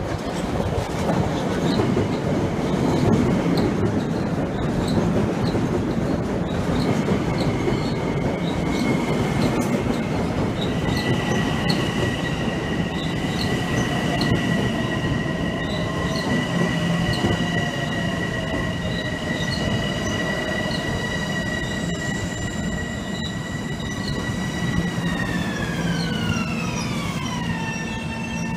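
Long Island Rail Road commuter train pulling into the station: a heavy rumble of wheels on rail at first, then a high steady whine that falls in pitch about 25 seconds in and settles lower. A faint regular clicking runs underneath.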